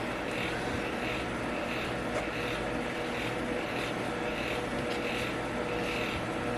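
Steady whir of a background fan, with a low hum and a hiss that swells and fades about once a second.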